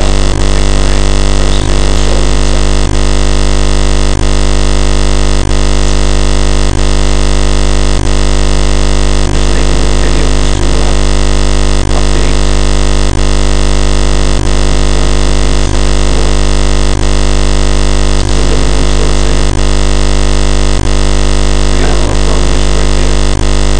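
Loud, unchanging electronic drone of many steady tones, with a brief dropout about every second and a quarter, drowning out everything else.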